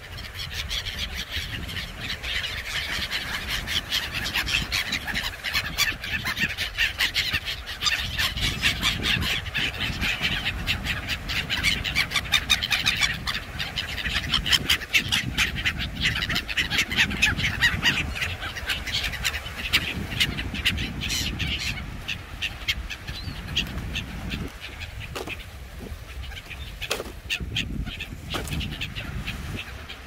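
A flock of gulls and feral pigeons crowding over food: a dense chatter of harsh gull calls and wing flaps, busiest in the first two-thirds and thinning toward the end, over a low rumble of surf and wind.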